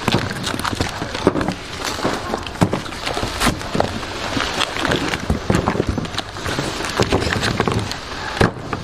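Packing work: a dense, irregular run of rustling plastic and small knocks and clatters as packages are handled.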